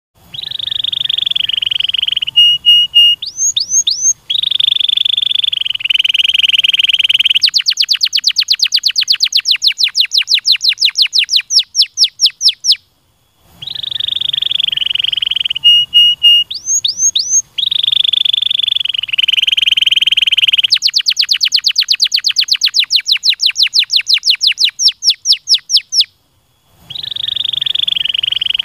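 Canary singing a long song: buzzy rolled trills and a few short notes, then a fast run of rising whistled sweeps. The song stops briefly and then comes again the same way.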